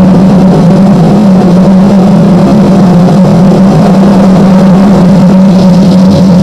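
Harsh noise: a loud, distorted, unbroken wall of noise over a steady low hum.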